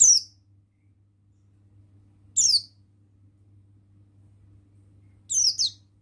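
White-eye of the buxtoni form (pleci buxtoni) giving short, very high calls that fall in pitch: two at the start, one about two and a half seconds in, and two more near the end. A faint steady hum runs underneath.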